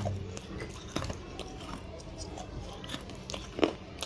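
Close-up mouth chewing and crunching pieces of baked clay pot coated in chalk paste, with scattered sharp crunches, the loudest a little before the end.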